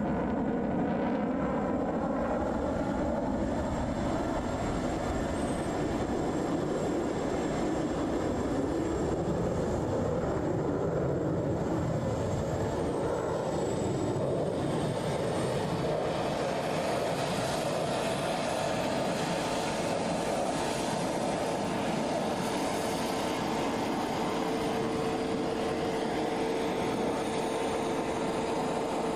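Distant jet roar of an F-22 Raptor's twin Pratt & Whitney F119 turbofans, steady throughout the display pass, with a wavering, phasing quality in the first few seconds.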